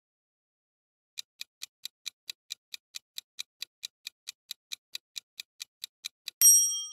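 Countdown timer sound effect: a steady run of about two dozen clock-like ticks, some four and a half a second, ending in a loud ringing ding of several bell tones as time runs out.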